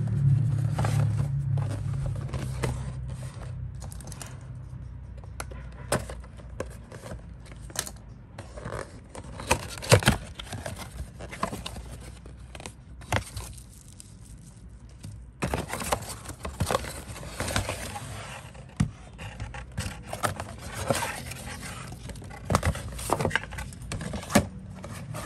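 Cardboard packaging being opened and handled: the box flaps and a cardboard insert scrape and slide, with irregular sharp clicks and knocks as the plastic automatic air freshener dispenser is lifted out and set down on the table.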